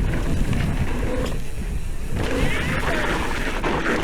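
A mountain bike being ridden on a dirt trail: steady wind rush buffeting the microphone, with rolling tyre and trail noise.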